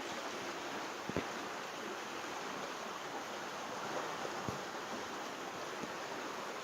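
Steady rush of a stream's flowing water, with two faint knocks, about a second in and past the middle.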